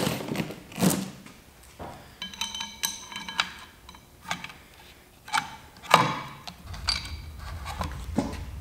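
Porsche M96 camshaft timing chains clinking and rattling against each other and the steel sprockets as they are handled and fitted by hand. There are several sharp metal knocks, and a brief ringing jingle a couple of seconds in.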